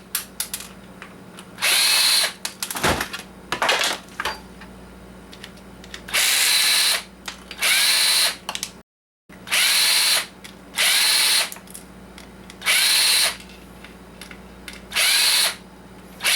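Power drill-driver run in about seven short bursts, each under a second, backing screws out of a coffee maker's plastic operator panel, with small clicks and rattles of plastic parts between the runs.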